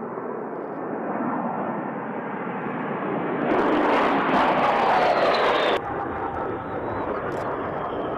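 A-10 Thunderbolt II's twin TF34 turbofan jet engines as the aircraft flies a low pass. A little over three seconds in it grows louder and brighter, with a falling whine as the jet goes by close overhead, then drops back suddenly about two seconds later to a steadier, more distant jet sound.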